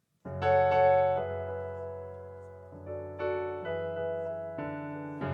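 Keyboard playing slow, sustained chords, a new chord struck every second or so and each left to ring and fade.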